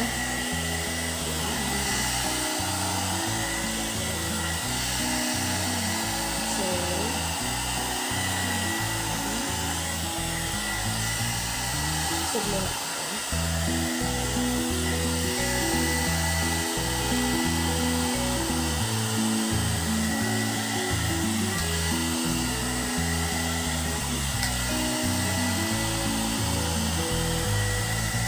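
Handheld hot air brush (one-step hair dryer and styler) blowing steadily: an even fan rush with a thin motor whine. Upbeat background music plays under it.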